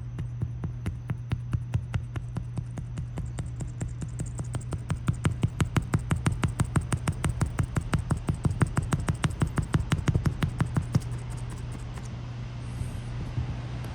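Single-edge razor blade scraping cured windshield-repair resin off the glass in quick back-and-forth strokes, several a second, shaving the excess from over the filled chip. The strokes get louder past the middle and stop a few seconds before the end.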